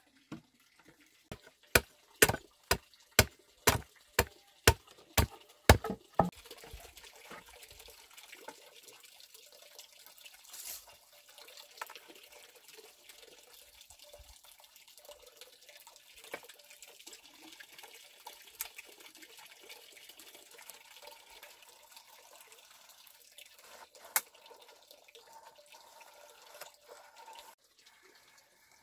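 A blade chopping into a wooden board: about a dozen sharp strikes, roughly two a second, over the first six seconds. They stop, leaving a faint even hiss with a few scattered light knocks.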